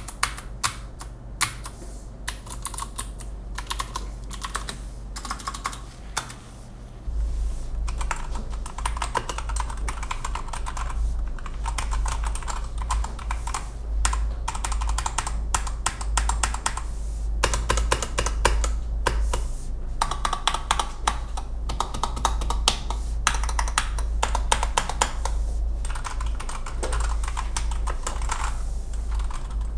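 Keychron mechanical keyboard being typed on fast and continuously, a dense run of key clicks and clacks. It gets louder about seven seconds in.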